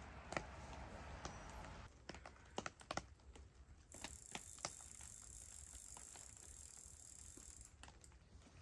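Faint, scattered drips of rain falling from the trees, as sparse short ticks over a quiet steady background. The ticks bunch together about two to five seconds in and thin out after.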